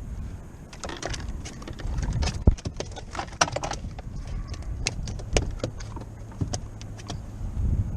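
Irregular clatter and knocks of tackle and gear in a small fishing boat as a trout is brought aboard, over a low wind rumble on the microphone.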